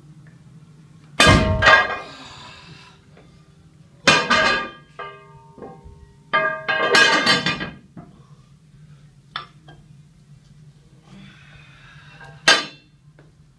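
Leoko rubber bumper plates being handled and set down, a series of heavy clanks and thuds with their metal hubs ringing briefly. Near the end comes a single sharp metallic clink as a small 1 kg steel plate is put against a bumper plate's hub.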